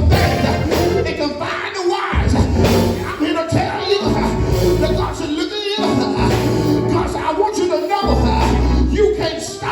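Church band music during the sermon: held bass notes that change every second or two, with percussion and voices singing.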